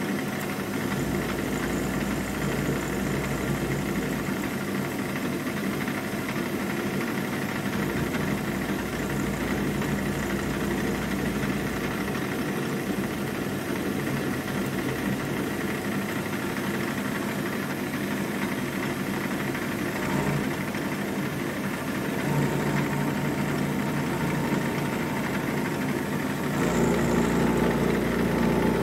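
Milling machine running an end mill at about 1600 RPM, roughing a recess out of a metal block with a steady cutting drone. It grows louder and heavier about two-thirds of the way in and again near the end.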